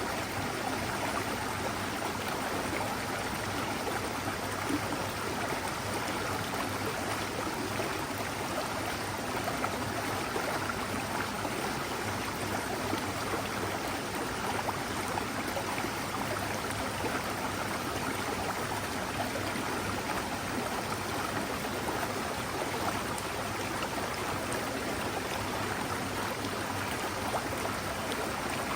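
Mountain forest stream flowing: a steady, even rush of running water.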